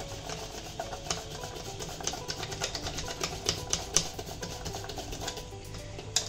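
Wire balloon whisk beating thick cake batter in a stainless steel bowl, its wires clicking and scraping against the metal sides in a quick, uneven run of clicks.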